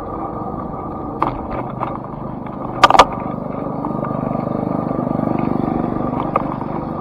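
Street noise while moving along a sidewalk. A sharp rattle comes about three seconds in, and a low rumble swells and fades in the second half.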